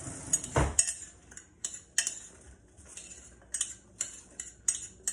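A metal utensil stirring chopped raw vegetables in a slow cooker's crock, knocking and clinking against the pot at irregular intervals, loudest about half a second in.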